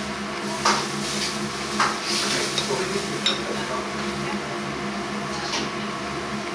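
Restaurant ambience: a steady low hum with scattered short clinks and knocks of dishes and tableware, about five in all.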